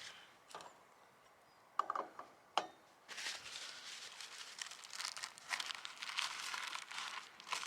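Two short clinks a little under two seconds in, then a continuous crinkling and rustling from about three seconds in.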